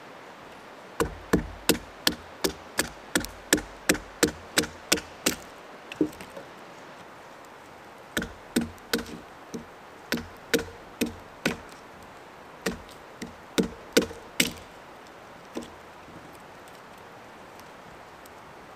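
Batoning firewood: a wooden baton striking the spine of a Mora Companion knife driven into a stick, giving sharp wooden knocks about three a second. After a pause of about two seconds comes a second, less even run of knocks, and then one last strike.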